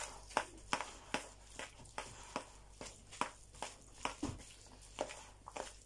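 Crab-stick salad with mayonnaise being mixed in a bowl: soft, wet squelching strokes repeating about two or three times a second.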